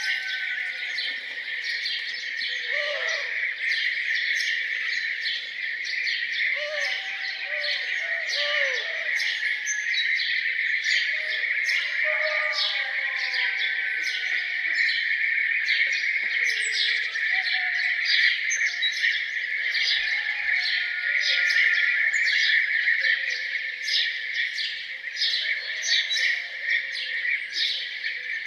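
A dense chorus of songbirds chirping and singing without pause, with a few lower calls that rise and fall scattered through the first half.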